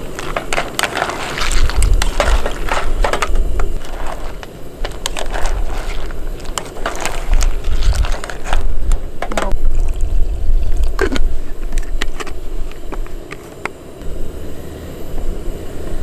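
A ladle stirring a pot of steaming broth on a portable gas burner, scraping and knocking against the pot in a run of irregular clicks, over a steady low rumble.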